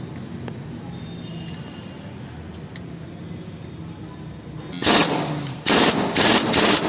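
A power tool run in several short trigger bursts near the end, driving in the centre bolt of a rebuilt car A/C compressor clutch. A low hum runs before the bursts.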